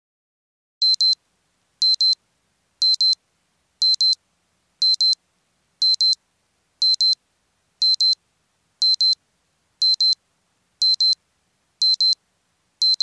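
Digital alarm-clock beeping as the countdown timer hits zero: a high-pitched double beep repeated about once a second, starting about a second in.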